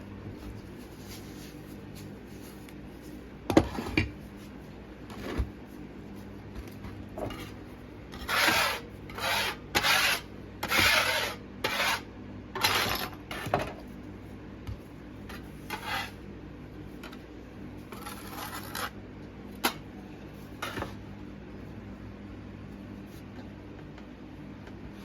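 Short rubbing or scraping strokes, a cluster of about a dozen in quick succession, with a sharp knock a few seconds before them and a few scattered strokes and a click afterwards.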